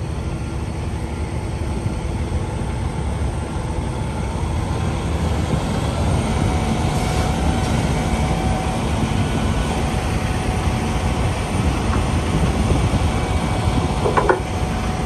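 Heavy-duty wrecker's diesel engine running steadily, growing slightly louder, with a short clank near the end as the underlift is set under the semi's front.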